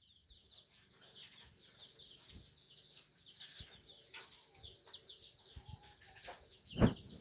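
Birds chirping over and over in short, high, falling notes, with farmyard chickens among them. A brief loud noise breaks in near the end.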